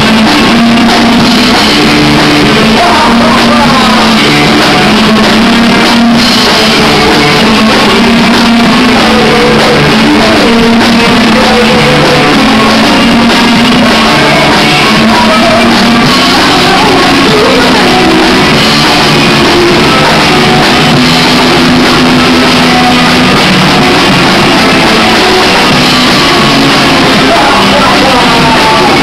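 Live deathrock band playing loud, with electric guitars, drums and vocals. The recording is so loud that it is overdriven and distorted.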